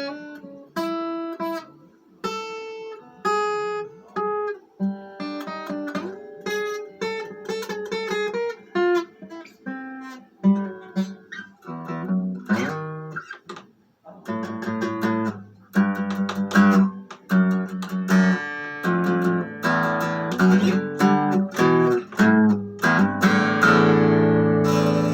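Guitar played solo: picked single notes and short phrases at first, then fuller strummed chords after a short pause about halfway through, ending on a chord left to ring.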